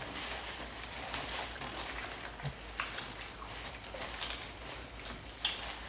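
Quiet mouth sounds of eating: fried chicken being chewed, with scattered small wet clicks and lip smacks.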